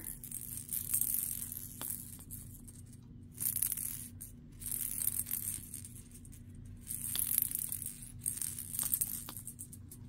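Light plastic rattling and rustling as an African grey parrot works its beak on a plastic cage-ball toy with a loose ball inside, in short uneven patches with a few faint clicks.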